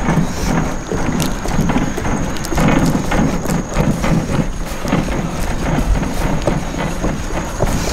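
Sneakers landing on wooden dock boards during jumping jacks: a steady rhythm of dull thuds, about two a second.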